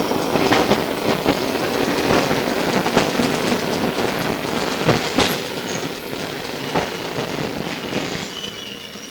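Melbourne SW5 class tram running along the track, heard from on board: wheel and running-gear noise with scattered sharp clicks over the rails, growing gradually quieter, with a faint wheel squeal coming in near the end.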